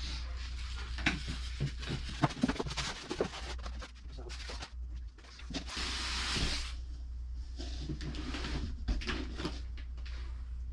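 Cardboard box and packaging being handled during an unboxing: scattered knocks and clicks, and a dense rustling scrape about five and a half seconds in, over a steady low hum.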